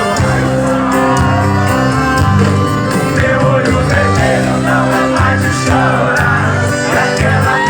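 Music: a song with a singing voice over sustained bass notes and a steady drum beat.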